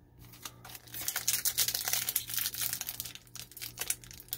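Foil booster pack wrapper crinkling and crackling as it is handled and worked at to open it, a dense run of crackles from about half a second in that thins out near the end.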